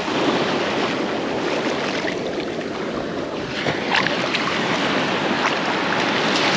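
Ocean surf washing on the beach, with steady wind buffeting the microphone.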